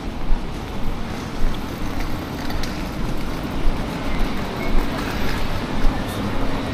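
Road traffic on a city street: a steady rush of passing vehicles with a low rumble.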